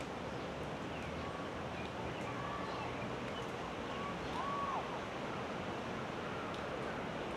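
Steady rushing background noise, with faint short bird call notes scattered through it and one clearer arched whistled note about four and a half seconds in.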